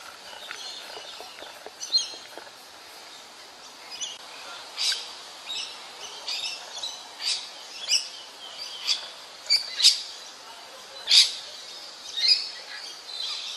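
Birds calling: a string of short, sharp, high chirps, roughly one a second, over a steady background hiss.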